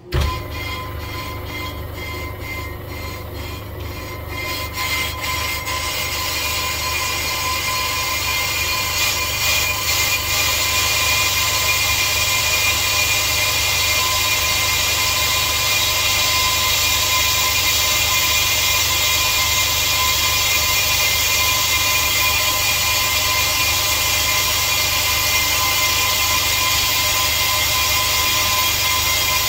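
Brake lathe starting up and turning a Zimmermann brake disc while the cutting tool skims its face to remove runout. It pulses rhythmically for the first few seconds, then settles from about ten seconds in into a steady machining noise over the motor's hum and a constant whine.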